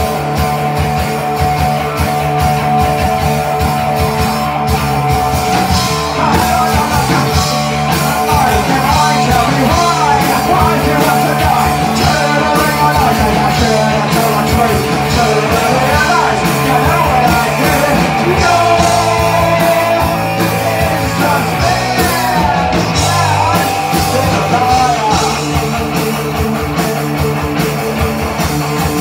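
Live punk rock band playing loudly: electric guitar, bass guitar and drum kit, with a male singer's punk vocals.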